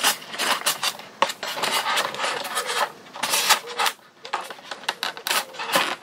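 Handling noise of an EPO foam model plane as its wing is pushed and worked onto the fuselage: irregular rubbing, scraping and clicking of foam parts against each other.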